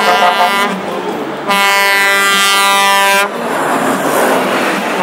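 Truck air horn sounding one long steady blast from about a second and a half in, lasting about two seconds. Before it, a semi-tractor's diesel engine runs loudly as the truck passes close at speed.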